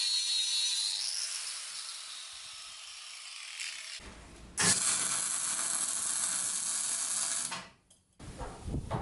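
Handheld power tool working the part in two runs: a high whine that fades over the first few seconds, then a loud steady run from about four and a half seconds that cuts off abruptly about three seconds later.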